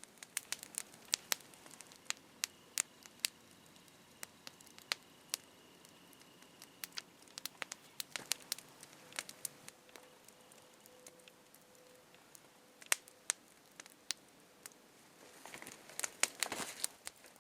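Wood campfire crackling, with sharp pops at irregular intervals, and a short stretch of rustling near the end.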